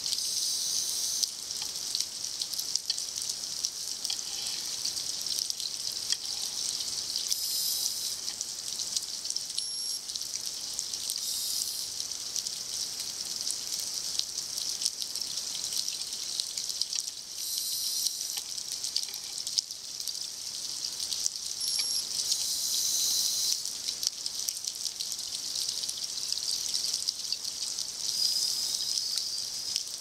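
Underwater sound: a scuba diver's regulator releasing a burst of exhaled bubbles about every five seconds, over a steady fine crackle.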